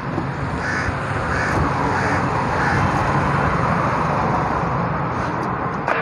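Crows cawing, about four calls in the first three seconds, over a steady background rumble.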